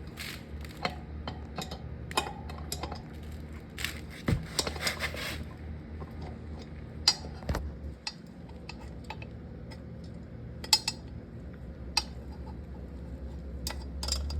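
Wrench and metal parts clinking and scraping against each other while adjusting a dirt bike's chain tensioner, in scattered irregular clicks, over a steady low hum.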